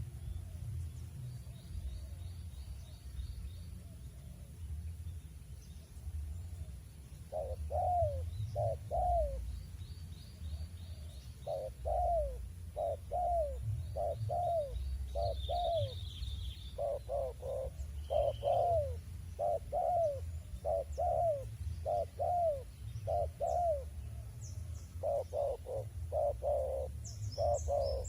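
Spotted dove cooing: short coo notes that fall slightly in pitch, repeated in runs of two to four, starting about seven seconds in and going on steadily after that.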